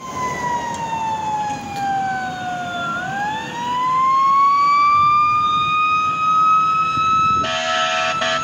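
Fire engine siren wailing: the tone slides down for about three seconds, then winds back up and holds high. An air horn blares in on top near the end.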